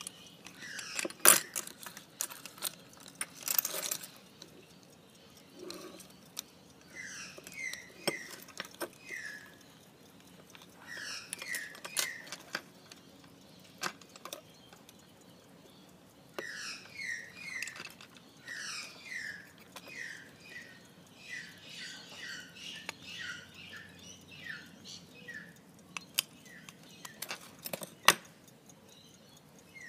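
Sharp metallic clicks and snaps from a sterling silver pocket watch case and bezel being handled, opened and closed, the loudest about a second in and near the end. Between them, runs of quick falling chirps like a small bird's.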